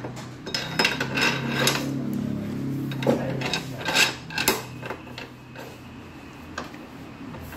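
Steel clinks and clicks from a threaded-rod bearing-race puller being fitted and turned on a motorcycle's steering head, with several sharp metal knocks in the first few seconds. A low steady hum runs under the first three seconds.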